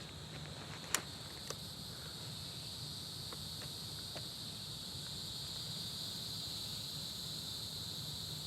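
Insects, crickets or similar, droning steadily in one continuous high-pitched note, with a sharp click about a second in and a fainter one just after.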